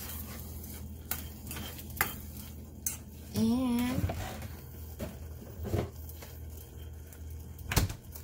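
Metal spoon stirring and knocking against a stainless steel saucepan of cooked rice, chicken and broccoli, with several separate clinks. A short wavering hum a little before halfway.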